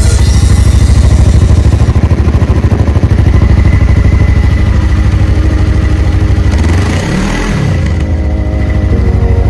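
Haojue TR300's 298 cc liquid-cooled twin-cylinder engine running at idle, heard close to its exhaust, with a steady pulsing beat. About seven seconds in the engine note briefly dips and comes back up.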